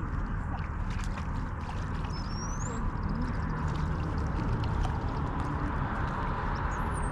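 Steady rushing wind noise on the microphone, with a bird's short rising whistle repeated every few seconds.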